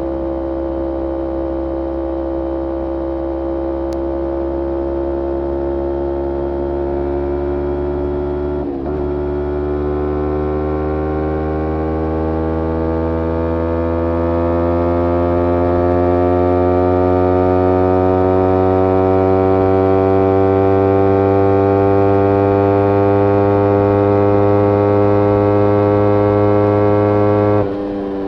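Kawasaki Ninja 250R's parallel-twin engine through a full Graves racing exhaust, pulling under throttle with its note climbing slowly in pitch. About nine seconds in the pitch dips briefly as it shifts up a gear, then it climbs again and grows louder for many seconds before dropping sharply near the end.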